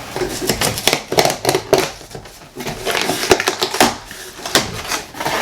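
A cardboard shipping box being opened and handled by hand: a run of irregular crackles, taps and scrapes of cardboard and packaging.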